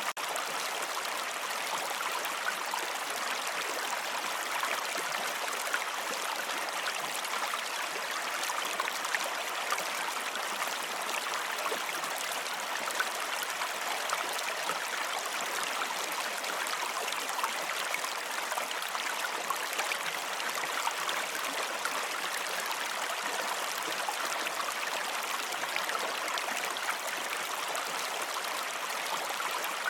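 Running water flowing steadily, an even rush with fine trickling detail.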